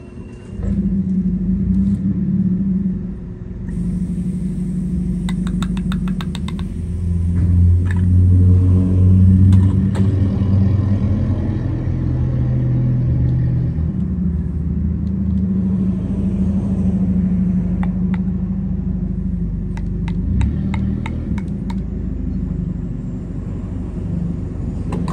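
A motor engine running with a steady low rumble, loudest about eight to ten seconds in, with a few scattered light clicks.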